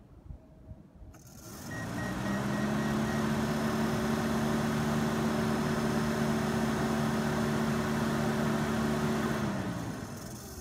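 Alfa Romeo Spider 115 stock electric radiator cooling fans switched on by touching a test lead to the power junction box: a click, then the fan motors spin up with a rising whine and run steadily with a hum and a rush of air. Near the end the power is cut and they wind down with a falling pitch.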